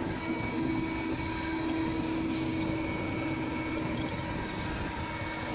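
Steady machine running with a constant hum, unchanging throughout.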